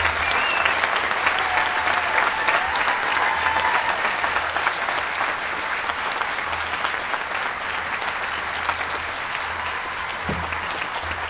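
Large crowd applauding, a standing ovation of dense, many-handed clapping that eases off a little toward the end.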